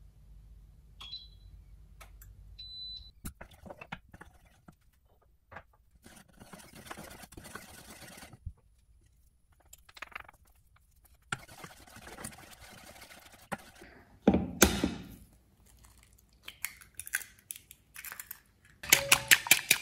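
Cooking sounds at a cooktop: two short, high touch-control beeps from a glass-top hob, then ingredients poured and dropped into a steel pot of milk, heard as soft hissing pours and one louder thump. Near the end eggs are cracked into a wooden bowl, and a fast, even rattle of whisking begins.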